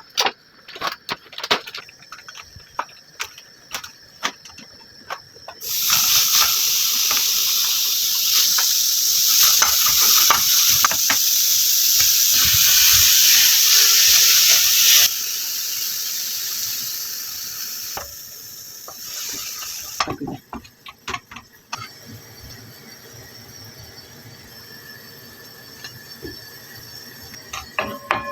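Food frying in hot oil in a pan, a loud, even sizzle that starts suddenly about six seconds in and drops to a quieter sizzle about halfway through. Sharp taps and clicks, as of kitchen utensils, come before it and again briefly later.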